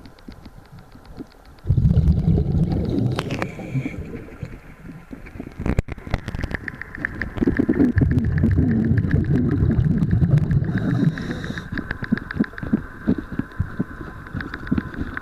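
A diver's exhaled air bubbling up past an underwater camera, in two low rumbling bursts: one starts about two seconds in, and a longer one starts about halfway through. Faint rapid clicking runs between them.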